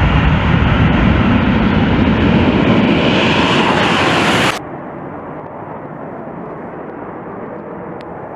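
Tu-22M3 bomber's twin NK-25 turbofan jet engines at takeoff power: a loud roar that grows brighter as the bomber lifts off close by. About halfway through it cuts abruptly to a quieter, duller jet noise of the bomber climbing away at a distance.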